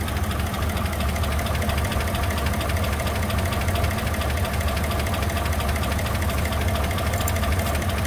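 A 2004 Chevy Silverado's 5.3-litre V8 idling steadily with a rapid, even tapping. The engine is nearly out of oil and has no oil pressure.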